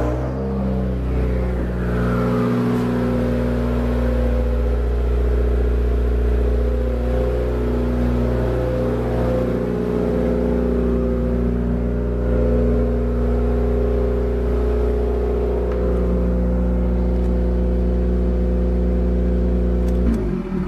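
2016 Subaru WRX's turbocharged 2.0-litre flat-four running at a steady, raised cold idle, heard through a catless J-pipe and Tomei Expreme Ti titanium exhaust.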